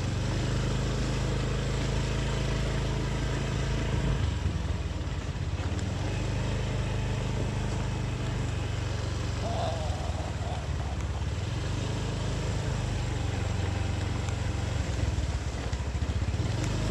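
Small motorcycle engine running steadily while riding, with wind and road noise over it; the engine note shifts about four seconds in.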